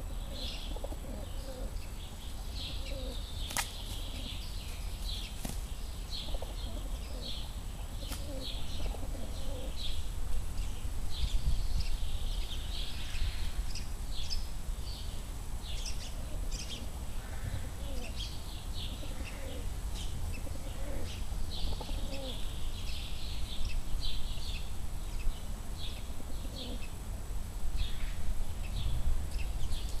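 Feral pigeons fighting: wings flapping in short scuffles and repeated low cooing, with small birds chirping busily throughout in the background.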